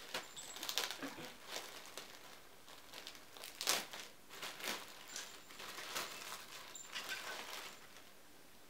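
Clear plastic poly bag crinkling and rustling in irregular crackles as it is opened by hand and a folded baby bodysuit is pulled out of it, loudest about three and a half seconds in.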